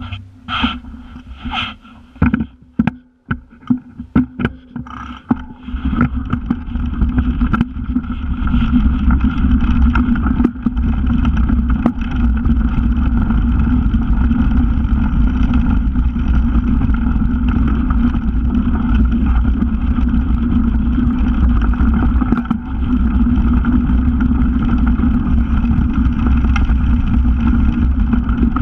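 Mountain bike setting off: a few sharp clicks and knocks in the first seconds as the rider mounts and pushes off, then a steady loud rush of wind on the bike-mounted microphone and knobby tyres rumbling over a dirt track, building up over a couple of seconds as the bike gathers speed downhill.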